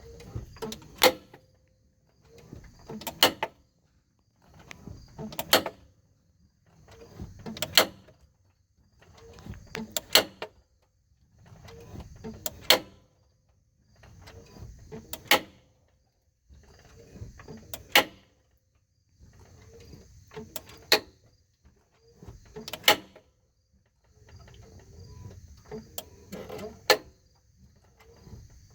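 A South Bend 3250 making a repeated popping noise: about a dozen cycles, roughly every two and a half seconds. Each cycle is a brief rattling build that ends in a couple of sharp pops, with quiet gaps between.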